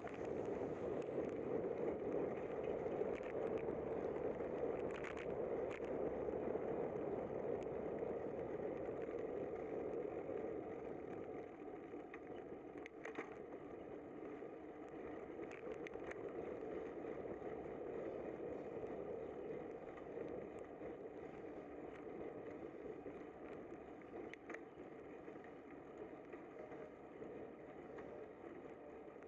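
Steady rolling noise of a bicycle riding on wet pavement, louder for the first ten seconds or so and then easing, with a few light clicks scattered through it.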